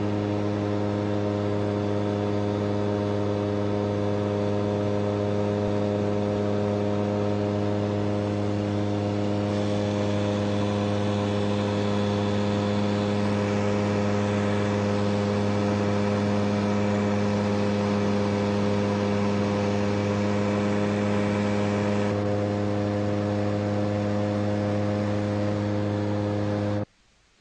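A CFM Shadow microlight's two-stroke engine running at a steady pitch, with extra rushing noise for a stretch in the middle. The sound cuts off suddenly near the end.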